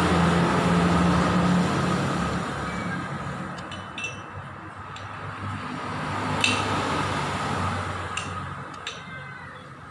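Motorcycle engine running, its note loud at first and dying down after about two seconds, with a few sharp metallic clinks, like tools on metal, in the quieter stretch.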